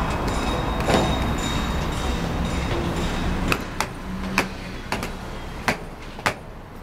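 A steady rumble that eases off about three and a half seconds in, followed by footsteps at about two a second.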